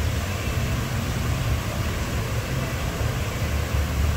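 Steady low rumble under a constant hiss.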